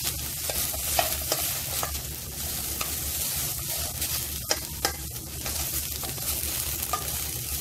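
Chopped okra sizzling as it shallow-fries in about a teaspoon of oil in a stainless steel pan, stirred with a wooden spatula that scrapes and taps against the pan now and then. A steady low hum runs underneath.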